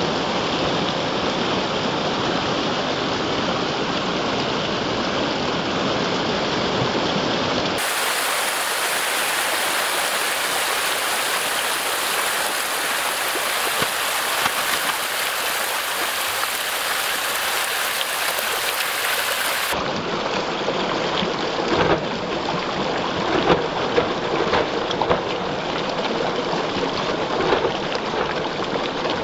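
Pond water churning and splashing as a dense mass of feeding catfish thrash at the surface while feed pellets are poured in, a steady rain-like hiss. Sharper individual splashes stand out in the last several seconds.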